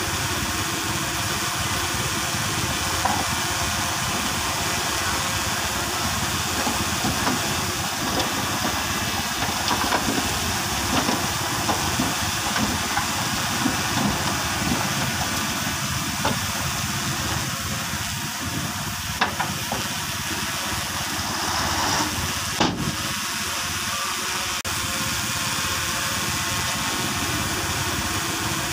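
Komatsu crawler bulldozer's diesel engine running steadily as it pushes soil, under a constant hiss, with scattered light knocks and one sharper click about three quarters of the way through.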